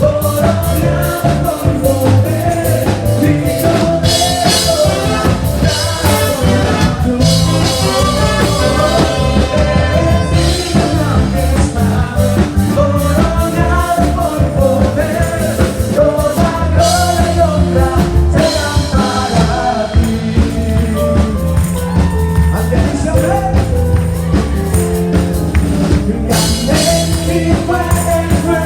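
A band playing upbeat rock music with a lead singer, a steady bass line and drums.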